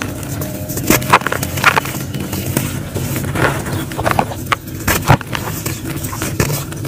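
Hands crushing and crumbling lumps of dry clay dirt: crunchy crackling and gritty rustling, with sharper cracks about a second in and again about five seconds in.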